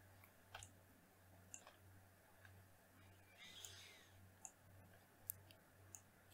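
Near silence with faint, scattered computer mouse clicks, about one every second or so, over a low steady hum.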